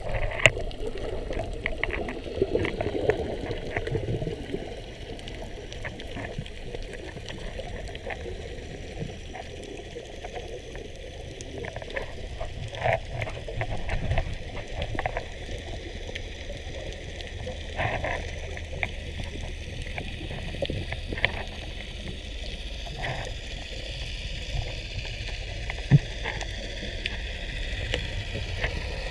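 Underwater ambience picked up by a camera held underwater: a steady muffled rumble of water with scattered clicks and knocks.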